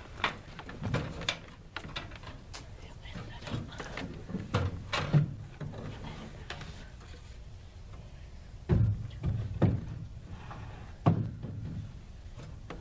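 Wooden knocks and thumps of a lumber rafter board being handled and set into place against a timber roof frame, with a few louder thuds in the second half.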